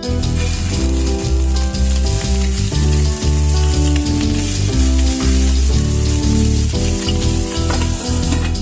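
Chicken drumsticks sizzling as they fry in hot oil, a steady dense hiss that starts and stops abruptly with the shot. Background music with a bass line plays throughout.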